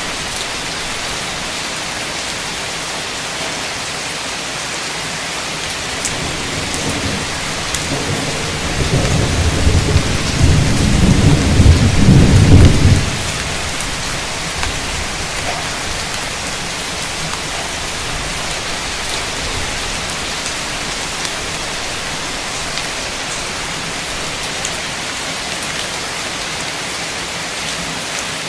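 Heavy, steady rain hissing down. A roll of thunder builds from about six seconds in, grows louder, and cuts off suddenly about thirteen seconds in, after which only the rain goes on.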